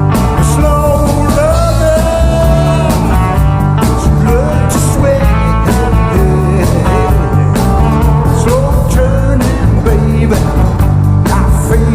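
Blues band playing live and loud: a lead line bends notes over bass and drums with a steady beat.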